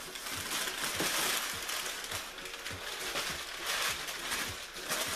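Packing paper rustling and crackling as it is pulled out of a cardboard shipping box, with scattered soft knocks.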